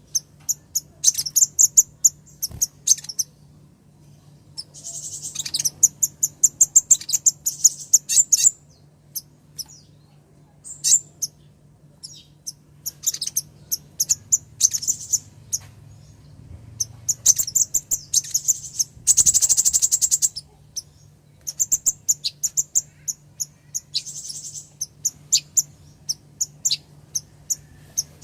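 Female kolibri ninja sunbird calling to a male: clusters of rapid, high, thin chirps and trills with short gaps, and a denser buzzing burst about nineteen seconds in.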